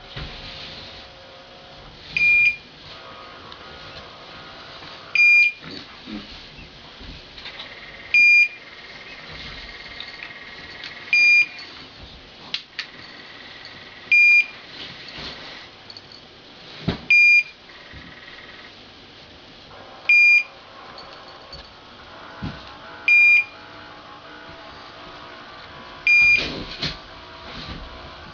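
Refrigerator's electronic alarm beeping during maintenance: a short, high beep repeated evenly about every three seconds.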